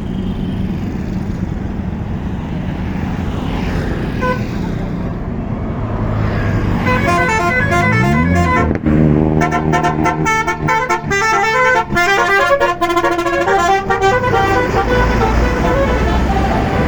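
Tour bus Basuri telolet horn playing a fast melody of short, rapidly changing notes for about seven seconds, starting about seven seconds in over bus engine and traffic noise.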